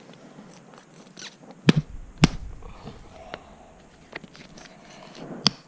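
Hands handling small objects at a table: a few sharp clicks and knocks, two close together about two seconds in and one near the end, with faint rustling between them.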